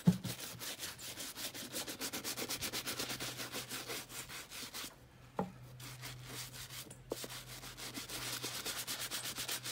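Brush scrubbing saddle-soap lather into a leather motorcycle boot in quick, even back-and-forth strokes, cleaning and nourishing the leather. The brushing breaks off briefly about halfway, with a click as it resumes.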